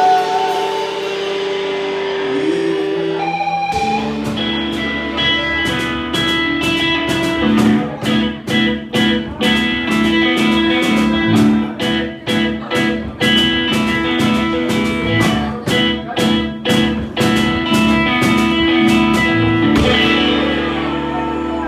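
Live rock band playing an instrumental passage on electric guitar, bass guitar and drums. Held chords give way to sharp, rhythmic hits from the whole band in the middle.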